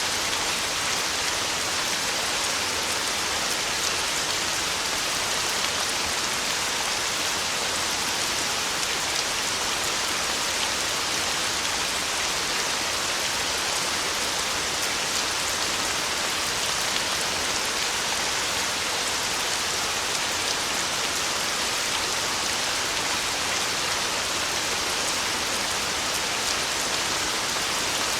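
Heavy rain falling steadily on a tin roof, an even hiss peppered with fine drop ticks.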